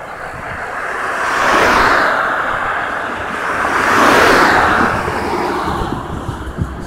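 Road traffic passing close by: two vehicles go past in turn, about two seconds apart, their tyre and road noise swelling and fading. Wind buffets the microphone underneath.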